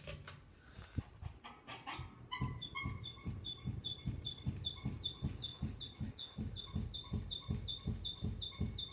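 Ceiling fan running on high and wobbling, with a rhythmic knock and squeak repeating about three times a second. The rhythm starts about two seconds in, after a few clicks. The owner puts the wobble down to the blades.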